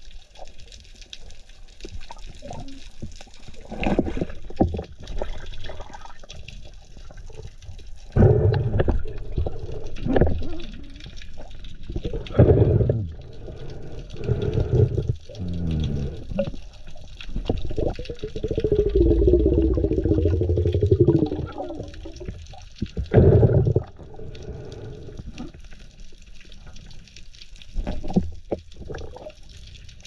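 Muffled underwater sound picked up by a diving camera: irregular rushes of moving water and bubbling gurgles, with occasional knocks, as a speared fish is handled underwater.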